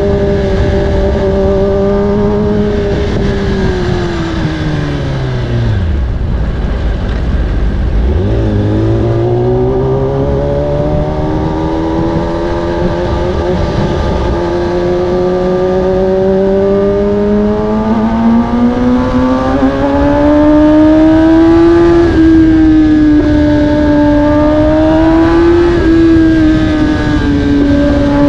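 Kawasaki ZX-10R 2020's inline-four engine through an Akrapovic carbon exhaust, heard while riding. The revs drop to near idle about six to eight seconds in, then climb steadily for over ten seconds, easing briefly twice near the end.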